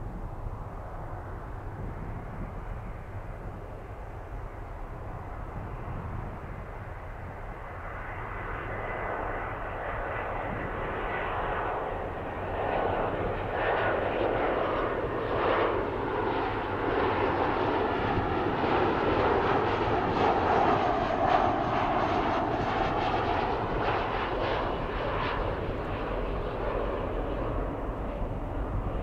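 Boeing 737-500's CFM56-3 turbofan engines running as the jet goes by, the noise building steadily for about ten seconds, loudest a little past the middle, then easing off slightly.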